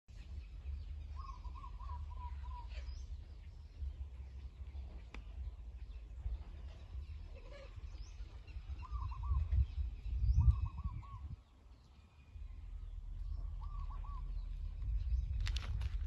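Wind rumbling on the microphone, with stronger gusts about nine to eleven seconds in. Over it, a bird calls a quick run of short looping notes, several times over.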